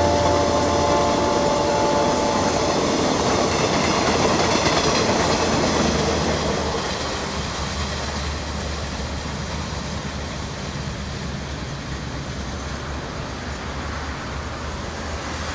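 KTMB Class 24 diesel locomotive's horn chord still sounding at the start and stopping about two and a half seconds in, over the rumble and wheel clatter of its passenger coaches rolling past. The train noise then slowly fades as the train pulls away.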